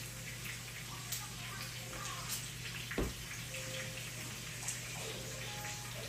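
Steady hissing rush of kitchen noise with a low hum under it, broken by a few light clicks and one louder knock about three seconds in.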